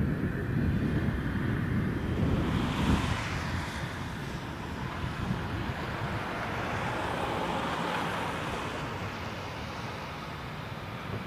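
Diesel engines of a wheel loader and a dump truck working on a gravel site, a low steady rumble that is loudest in the first few seconds, with wind on the microphone.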